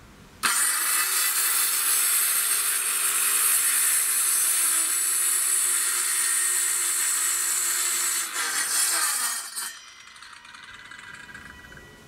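Portable electric circular saw cutting across a wooden plank. It starts suddenly half a second in, runs steadily at a high-pitched whine with the blade in the wood, wavers briefly near the end of the cut, and cuts off about nine and a half seconds in.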